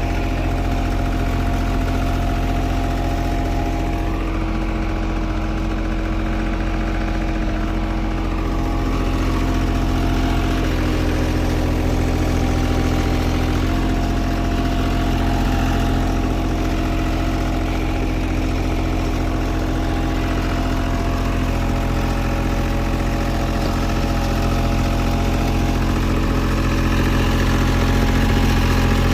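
Engine of asphalt paving machinery running steadily, with a slight change in its tone for a few seconds about halfway through.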